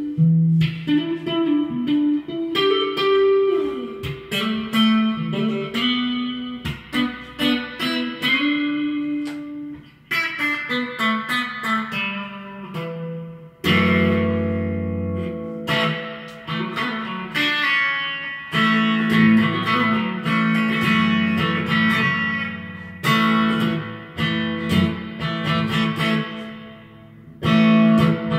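Reverend Buckshot electric guitar played through an amplifier, improvising quick picked single-note lines and chords that ring out. Fuller, sustained low chords come in about halfway through.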